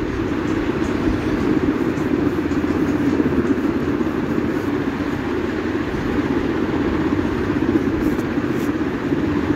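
Steady rushing noise of a stove burner under a karahi of potato and papaya curry cooking down in its masala, with a few faint ticks.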